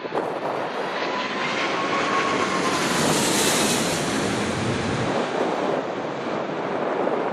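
Jet airliner flying low overhead: engine noise swells to a peak about three and a half seconds in, with a whining tone that drops in pitch as it passes, then eases off.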